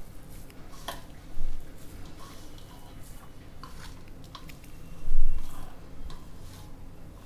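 A hand squeezing and mixing a moist mix of soaked sago pearls and mashed boiled potato in a stainless-steel bowl, with a dull thump about a second and a half in and a louder one about five seconds in.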